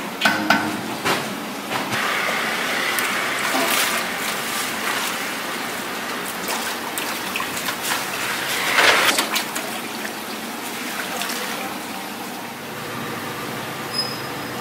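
Water splashing and draining as soaked soybeans are poured from a steel pot into a plastic colander, with scattered clicks and knocks from the beans and metal pot and bowl.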